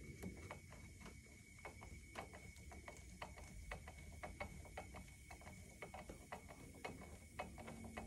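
Faint, irregular ticking clicks, several a second, as the regulator knob of a leak-down tester is turned to fill a cylinder with air, with a thin steady high tone behind them.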